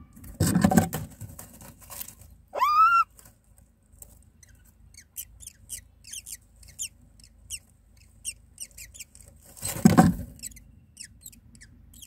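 Myna nestlings begging with a rapid run of short, high cheeps, about two to three a second, as the adult comes to feed them. A single loud rising call sounds just after 2.5 s, and two loud rustling bursts come about half a second in and near 10 s.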